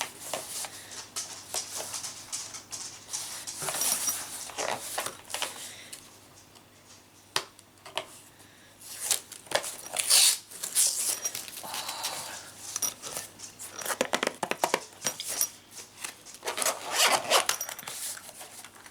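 Gift packaging being handled and torn open by hand: irregular rustling, crinkling and tearing with small clicks, coming in spurts with a short lull partway through.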